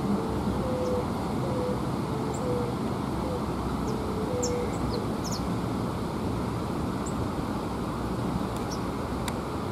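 Scattered short, high chirps from small birds over a steady, even rumble of outdoor background noise, with a run of short low notes in the first half.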